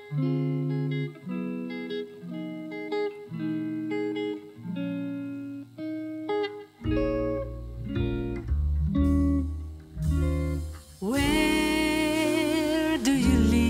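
Background music: a guitar picking single notes. A bass line comes in about seven seconds in, and a singing voice joins near the end.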